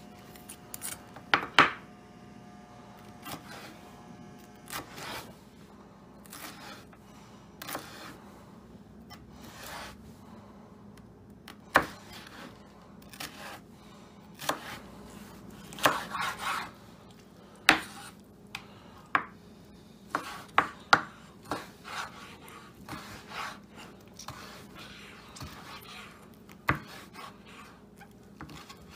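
Chef's knife slicing green pepper and then raw chicken on a wooden cutting board: irregular sharp knocks as the blade strikes the board, some much louder than others.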